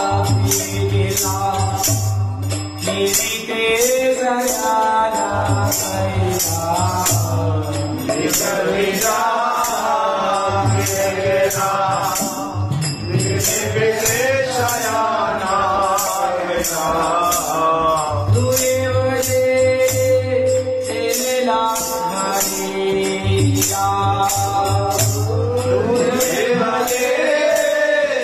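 A man singing a devotional song in long, gliding phrases, accompanying himself on a gopichand (ektara), with an even, quick beat of jingling percussion throughout.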